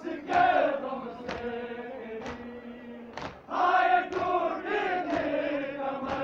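A large crowd of men chanting in unison, with a sharp beat about once a second keeping time.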